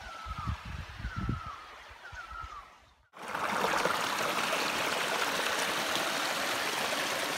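Small mountain stream running over rocks, a steady rush of water. For the first three seconds it is fainter, with a bird giving a short falling chirp about once a second and some low thumps, then it cuts to the fuller, steady sound of the water.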